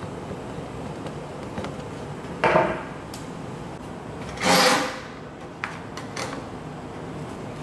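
Plastic drain-auger cable drum parts and the coiled steel cable being handled on a wooden workbench: two short loud clatters about two seconds apart, the second longer, then a few light clicks as the back cover is fitted onto the drum.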